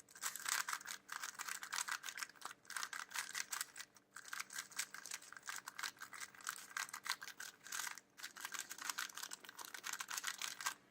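A 4x4 speed cube being scrambled by hand: a fast, continuous clatter of plastic layers turning and clicking against each other.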